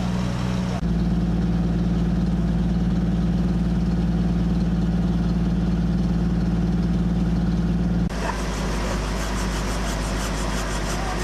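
4x4 engines idling in a steady low drone, heard in three shots. In the middle shot, taken low beneath a parked vehicle, the drone is steadier and a little louder. Near the end, close to the white 4x4's open engine bay, a fast, even ticking joins the idle.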